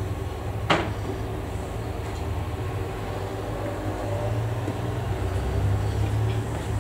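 Steady low machine hum, with a single sharp knock about a second in.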